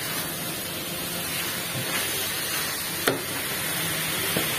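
Minced chicken sizzling in a wok as it is stir-fried with a silicone spatula, a steady hiss, with one short sharp knock about three seconds in.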